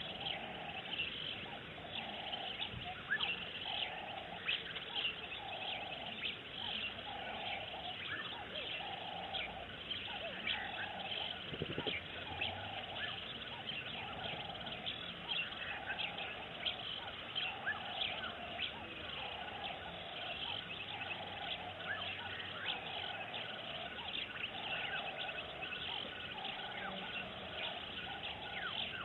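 Bush ambience of many small birds chirping, with a lower call repeating evenly about once a second throughout.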